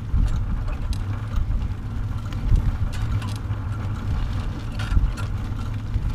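Bicycle-towed pet trailer rolling over asphalt: a steady low rumble of wheels on the road and wind buffeting the microphone, with scattered light clicks and rattles from the trailer frame.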